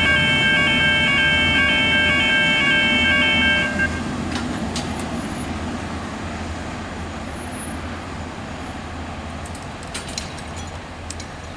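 A V/Line VLocity diesel multiple unit runs away from the listener, the drone of its Cummins diesel engines and wheel noise steadily fading. A repeating electronic warning chime sounds over it for the first few seconds and cuts off about four seconds in. A few sharp clicks come later.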